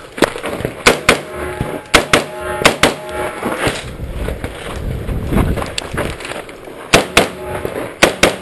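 AR-15 rifle firing close to the microphone, mostly in quick pairs of shots: about seven shots in the first three seconds, a pause of about four seconds, then two more quick pairs near the end.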